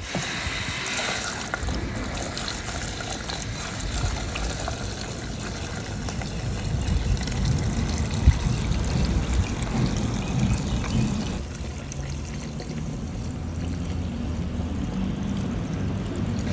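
Gasoline pouring into a car's fuel tank, with a steady low hum underneath from about six seconds in.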